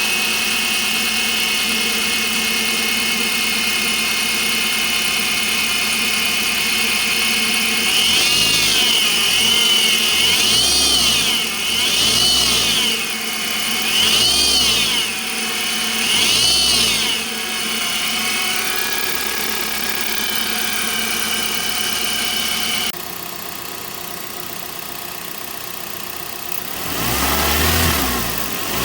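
Suzuki M15A 1.5-litre four-cylinder engine idling and blipped five times, with a steady high whine that rises and falls with the revs: the noise of a worn air-conditioner idler pulley. About 23 seconds in, it cuts to the engine running quieter with the whine much reduced after the pulley was replaced, revving once near the end.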